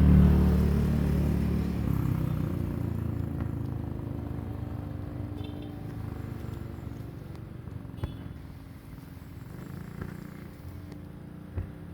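A motor vehicle's engine, loudest at the start and fading away over the first few seconds, leaving a faint low hum with a few light clicks.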